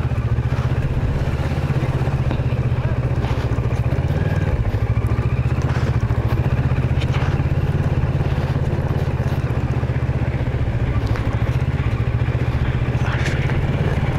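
Kawasaki Versys 650's parallel-twin engine running steadily while the motorcycle is ridden at an even pace.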